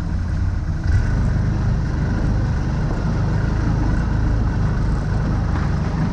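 CF Moto ZForce 1000 side-by-side's V-twin engine running under load while driving off-road, heard from inside the open cab, with a thump about a second in after which the engine is a little louder.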